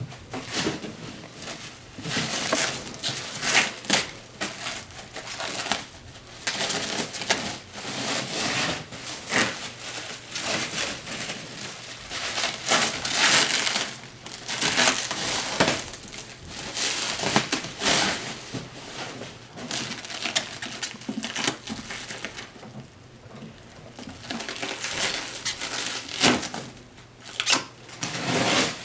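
Packing material being handled and pulled away by hand: irregular crinkling and crackling rustles, with a few sharper crackles.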